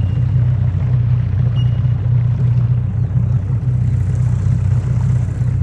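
Boat engine running steadily, a continuous low rumble.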